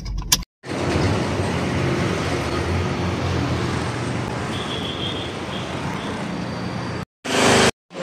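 Steady road traffic noise from passing vehicles, cut off abruptly about half a second in and again twice near the end.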